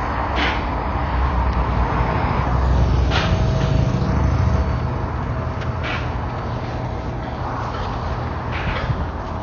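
Road traffic noise, with a low vehicle rumble that swells and fades about midway, and a few short hisses.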